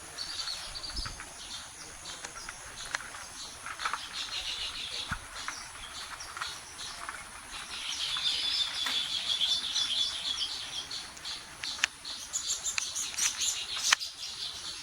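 Baya weaver birds chattering: many quick, high chirps, thickening into a longer run of chatter about halfway through.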